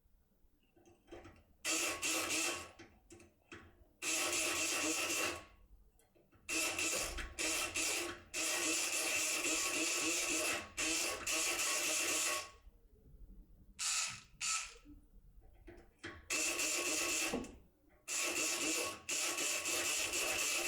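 Multipick Kronos electric pick gun buzzing in repeated bursts of one to five seconds, its needle hammering the pins of an English-type lock cylinder, with faint clicks between bursts.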